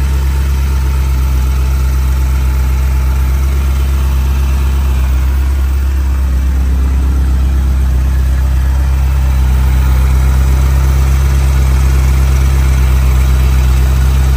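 Ferrari Mondial Quattrovalvole's 3.0-litre four-valve V8 idling steadily, still cold and warming up shortly after a cold start, heard close from the open engine bay. It grows slightly louder about two-thirds of the way through.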